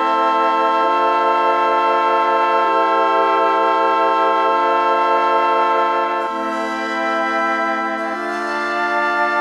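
Background music of slow, sustained organ-like chords over a held low note, the chord changing about every two seconds.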